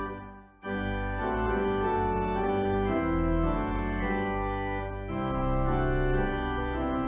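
Organ music playing held chords that change every second or so. It dies away almost to silence right at the start and comes back in sharply about half a second in.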